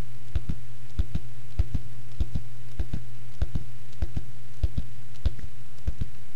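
Suspense sound effect: a steady low hum under a double thump that repeats evenly about every 0.6 seconds, a heartbeat rhythm.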